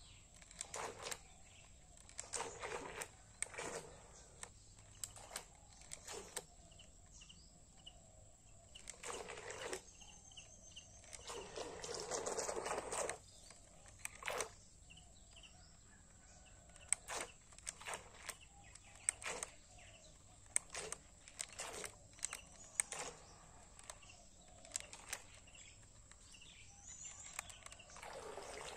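Faint outdoor ambience: irregular rustling noises and clicks, a few short bird chirps and a steady high hiss, with a louder rush of noise lasting about two seconds near the middle and another beginning near the end.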